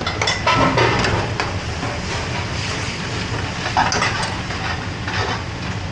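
Steady rushing noise of a commercial gas range's burners under curry pans, with metal ladles and pans clinking and scraping in short bursts in the first second or so and again around four and five seconds in.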